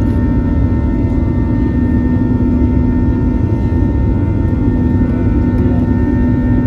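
Aircraft engines running steadily at high power during a departure, a deep rumble with a constant low hum and fainter steady tones above it.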